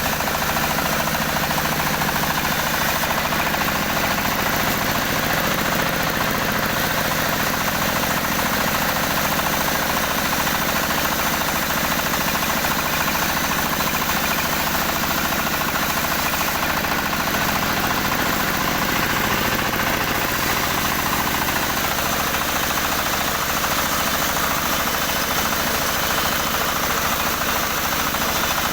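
Engine of a motorised wood saw running steadily at an even speed.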